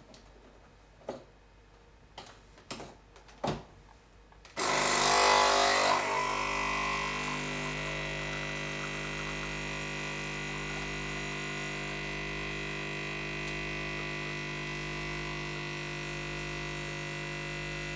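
Nespresso Pixie capsule machine: a few clicks as its lever is closed and it is started. About four and a half seconds in, its vibratory pump starts with a loud burst and settles into a steady buzzing hum while the espresso pours into the glass.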